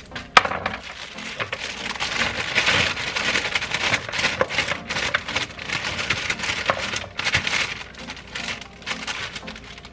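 Plastic bags of fresh French green beans crinkling as they are shaken out, with the beans spilling into a plastic bowl in a run of small clicks and rustles. A sharp snap comes about half a second in.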